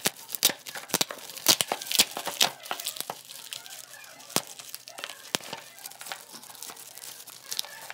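Plastic courier mailer bag being torn open and crinkled by hand. A quick run of sharp rips and crackles comes in the first few seconds, then softer crinkling with an occasional sharp crackle.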